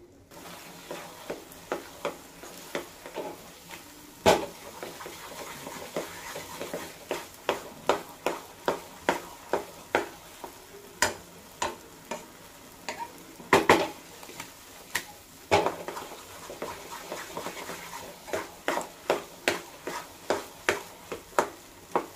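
Wooden spatula stirring thick atta halwa in a nonstick pan, knocking and scraping against the pan about twice a second, a few strokes louder than the rest, over a steady sizzle of ghee. The halwa is roasting at the stage where the ghee starts to separate.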